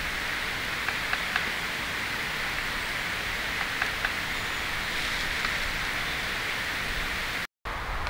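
Great spotted woodpecker (Ezo subspecies) tapping its bill against tree bark: a few light, irregular taps over a steady hiss. It is tapping to find where insects are hidden in the wood by the difference in sound.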